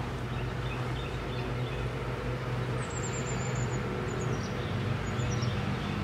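A steady low mechanical hum under outdoor background noise, with a few short high bird chirps over it.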